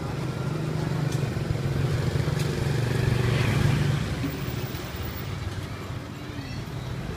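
Street traffic: a motor vehicle's engine running close by, a steady low hum that grows louder toward the middle and eases off after about four seconds.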